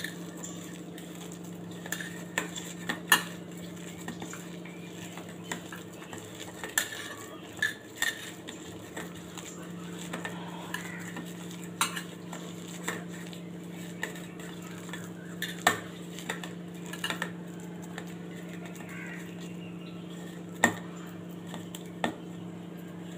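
Hand kneading ground green pea paste with salt in a stainless steel bowl, with irregular sharp clinks of metal against the bowl every second or two. A steady low hum sits underneath.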